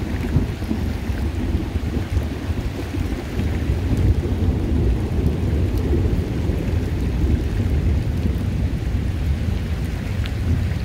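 Rain falling on a creek, with light scattered drop ticks over a deep, steady rumble that swells in just before and holds throughout.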